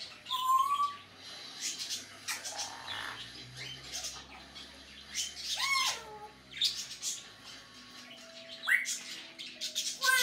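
African grey parrot making a run of short, sharp squawks and clicks, with whistles mixed in: a short whistle at the start, a whistle that slides down and back up about six seconds in, and a quick rising whistle near the end.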